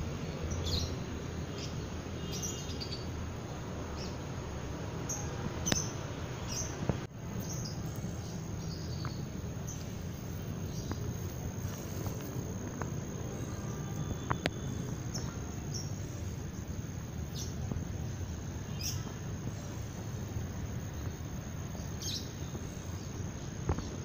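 Small birds chirping and tweeting in short, scattered calls over the steady, unbroken high trill of insects, with a steady low rumble underneath.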